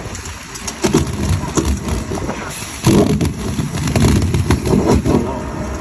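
Engine of a hydraulic rescue-tool power unit running during a vehicle extrication, an uneven low rumble with scattered knocks and clanks of metal.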